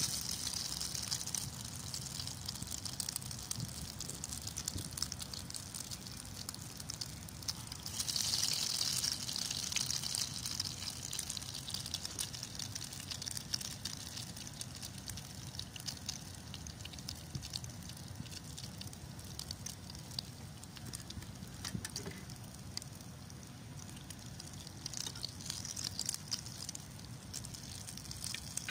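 Potato bread pieces deep-frying in hot oil in a pan, a steady sizzling crackle that swells louder about eight seconds in and again near the end.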